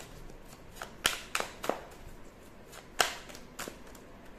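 Tarot cards being handled between draws: a scattered series of sharp card snaps and clicks, loudest about a second in and again about three seconds in.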